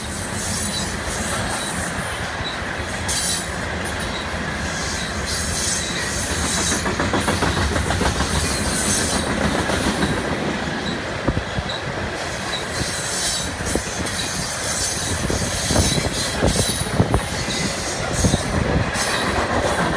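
Freight train of open-top gondola cars passing close by: a steady rumble of wheels on rail, with sharp knocks and clanks coming more often in the second half.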